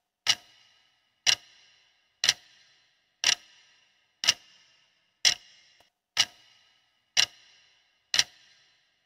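Clock-tick sound effect of a quiz countdown timer, ticking once a second, nine sharp ticks in all, each with a short ring.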